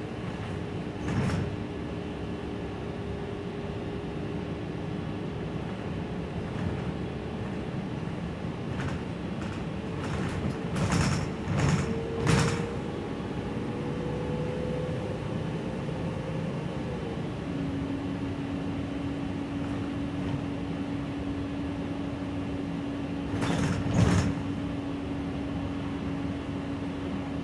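Interior of a Gillig low-floor city bus under way: steady running noise of the engine and drivetrain, with a whine that slowly rises and then drops to a lower steady tone about two-thirds of the way through. Sharp knocks and rattles come about a second in, in a cluster a little before the middle, and again near the end.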